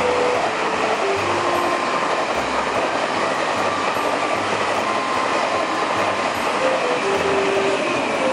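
Taiwan Railway E1000 push-pull Tze-Chiang express passing through the station at speed without stopping: a steady rush of carriage wheels on the rails.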